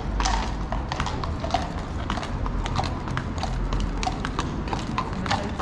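Hooves of two walking cavalry horses, shod hooves clip-clopping on stone paving in a quick, uneven run of sharp clacks, over a steady low rumble.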